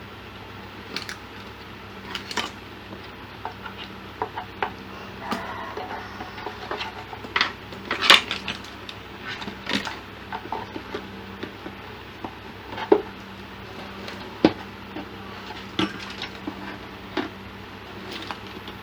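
Irregular light metallic clinks and clicks of tools and parts being handled on an electronics repair bench, the loudest about eight seconds in, over a faint steady hum.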